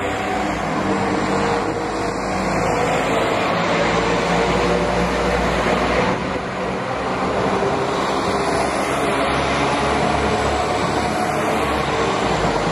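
West Midlands Railway Class 172 Turbostar diesel multiple unit passing close by at low speed. Its underfloor diesel engines give a steady hum over the rumble of wheels on the rails.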